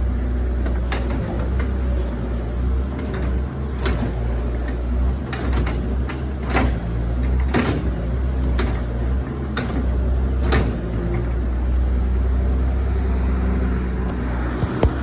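Doosan 140 excavator's diesel engine running steadily under work, with a dozen or so sharp clanks and knocks scattered through the first two-thirds.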